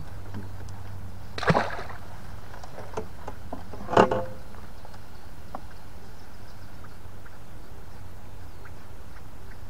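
Two short, sharp knocks about two and a half seconds apart, the second the louder, with a few faint clicks between and after them, over a steady low rumble.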